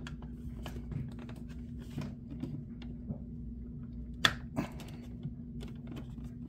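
Faint handling noises of a foil trading card and its cardboard box on a desk: scattered soft clicks and taps, with a sharper click about four seconds in, over a steady low hum.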